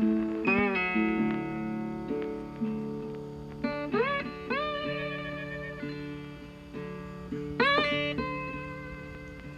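Background guitar music: plucked notes ringing out and fading, several sliding up in pitch into held notes, one with a wavering vibrato.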